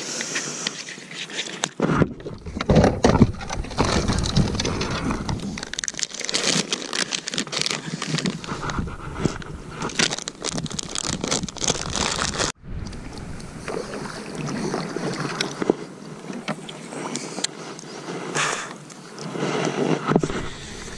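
Crinkling and rustling of thin plastic being handled close to the microphone: a plastic water bottle being squeezed and capped, then a plastic bag of sunflower seeds, in a dense run of irregular crackles and scrapes.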